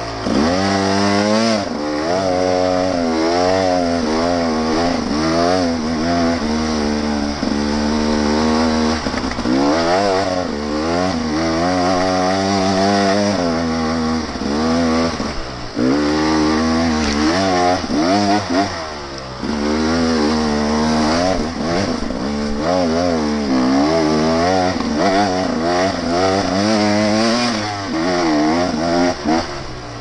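Dirt bike engine revving up and down without a break as it is ridden under load up a steep dirt trail, its pitch rising and falling every second or so, with a few short drops where the throttle is shut.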